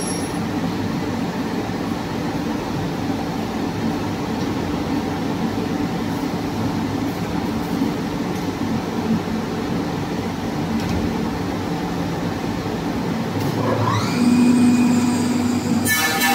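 CNC wood lathe running with a steady mechanical hum while its loader feeds wooden blanks. Near the end a motor spins up with a rising whine that settles into a steady tone, and music begins right at the close.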